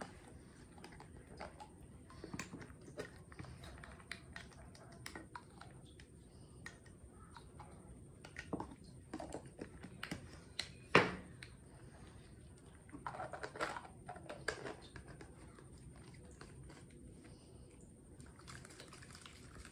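Faint clicks and taps from a plastic baby bottle and a formula milk tin being handled, with one sharper knock about eleven seconds in and a few short scraping rustles a couple of seconds later.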